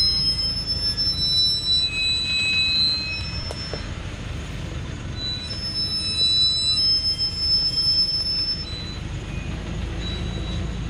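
Loaded Thaco Forland truck creeping down a steep dirt slope: the diesel engine runs low and steady while its brakes squeal in long, high-pitched tones that start and stop over a few seconds at a time.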